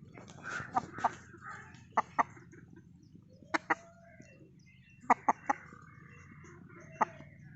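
Aseel chickens clucking: short, sharp clucks in pairs and threes, a second or two apart.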